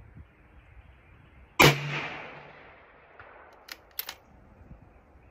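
A single bolt-action rifle shot about one and a half seconds in, its report echoing away over the next second or so. Around four seconds in come a few short, sharp metallic clicks as the bolt is cycled for the next round.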